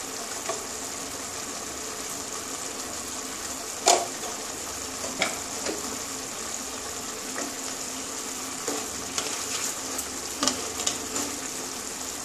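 Thick mustard-paste curry of drumsticks and potatoes bubbling in a pan at the boil: a steady sizzling hiss with scattered pops, the sharpest about four seconds in. Near the end a wooden spatula stirs through it.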